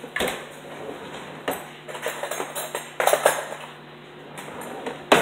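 Clinks and knocks of a spoon and a plastic cereal bowl being handled on a countertop: a few sharp, irregular clicks, the loudest about three seconds in and again just before the end.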